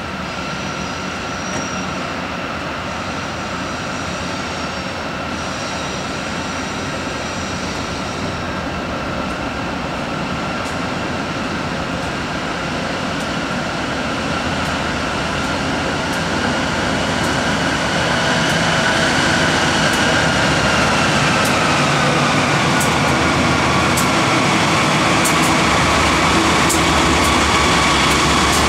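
Three BNSF GE Dash-9 diesel-electric locomotives pulling a freight train, drawing closer and growing steadily louder. A steady high whine drops in pitch about two-thirds of the way in as the lead units pass close. Sharp clicks from the wheels on the rails come near the end.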